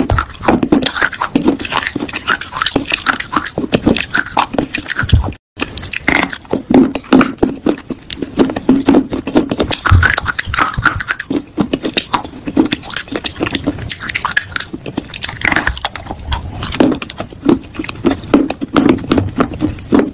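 Close-miked biting and chewing of fresh fruit: a dense run of crunches and wet mouth clicks, broken by a brief cut about five seconds in.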